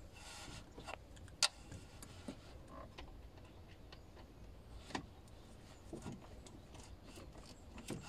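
Faint, scattered clicks and taps of hand tools working at a hose clamp screw, with one sharper click about a second and a half in and another about five seconds in.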